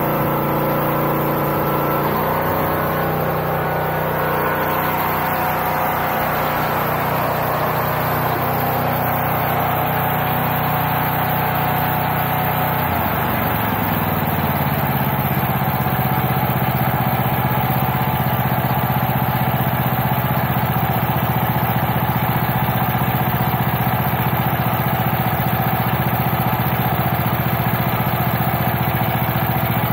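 Small petrol engine of a log splitter running steadily; about 13 seconds in its pitch slides down as it slows to a lower idle, then holds there.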